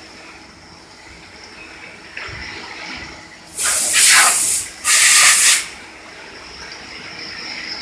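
Two loud bursts of compressed air hissing from a blow gun, each about a second long, the second following right after the first, over the steady whine and hum of a running CNC machine.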